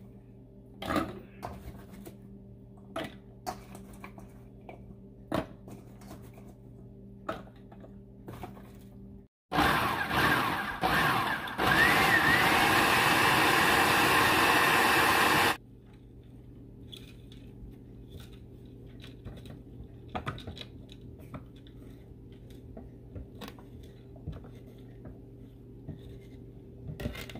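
Food processor chopping cauliflower florets into rice-sized bits: about two seconds of short pulses, then a loud steady run of about four seconds that stops abruptly. Before and after it, quiet clicks and knocks of florets being dropped into the processor bowl and the riced cauliflower being scooped out.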